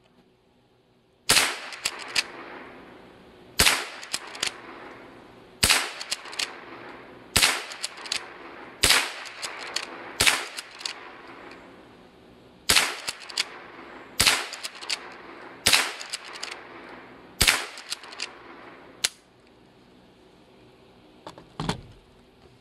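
Marlin Model 56 lever-action .22 rifle firing about eleven shots at a can, one roughly every one and a half to two seconds, with fainter clicks between the shots.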